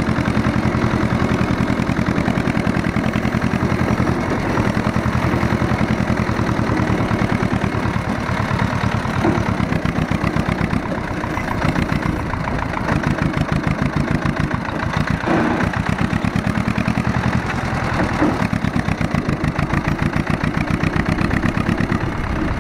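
Ursus C-330 tractor's two-cylinder diesel engine running under load as the tractor is driven in tight turns, its firing pulses clearly heard. The engine note dips briefly a few times along the way.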